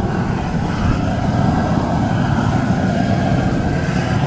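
Steady roar of a high-pressure propane burner turned wide open under a crawfish boil pot.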